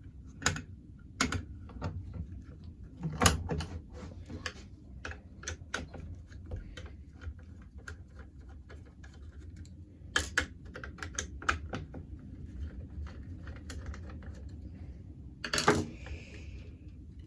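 Irregular sharp metallic clicks and clinks of the steel levers and parts of a disassembled 5-lever mortice lock being handled, with a few louder knocks scattered through. A steady low hum runs underneath.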